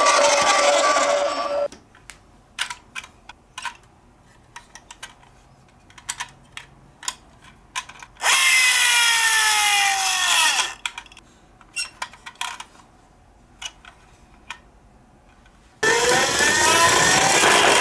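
Toy cars being handled and run: a loud whirring rattle at the start, scattered small plastic clicks and taps, a whir that falls in pitch for about two seconds in the middle, and another whir rising in pitch near the end.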